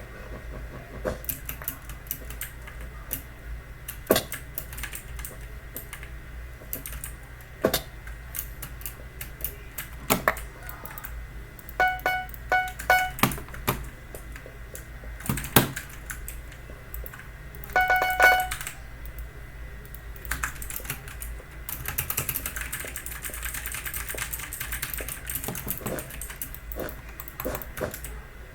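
Typing on a Logitech mechanical keyboard with clicky blue-style switches: irregular key clicks, denser and faster for a few seconds near the end. Short pitched beeps sound in two quick clusters around the middle.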